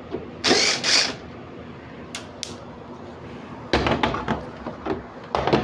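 Handling noises: two loud scraping rustles, two small clicks, then a clatter of knocks.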